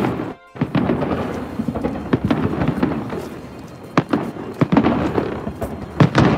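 Fireworks shells bursting overhead in a rapid series of sharp bangs and crackles, with the strongest reports about four and six seconds in. The sound drops out for a moment just after the start.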